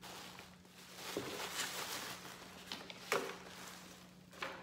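Plastic bags and bubble-wrap packing rustling and crinkling as they are handled and lifted out of a cardboard box, most busily in the first three seconds.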